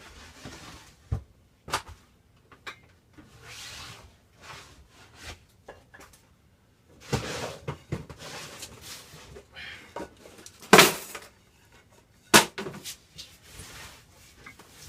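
Wooden boards being handled: a string of sharp knocks and bumps, the loudest about eleven seconds in, with shuffling and scraping between them as a shelf board is worked into place.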